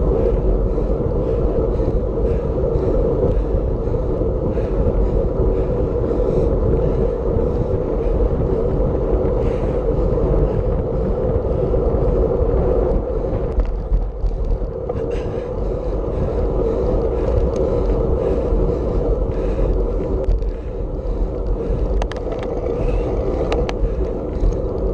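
Wind rushing over the microphone of a road bicycle ridden at speed, with steady tyre and road noise.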